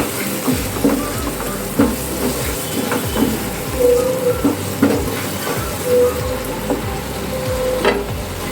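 Onion-garlic and ginger-tomato paste sizzling in hot oil while a spatula stirs it, with frequent short scrapes and knocks against the pan.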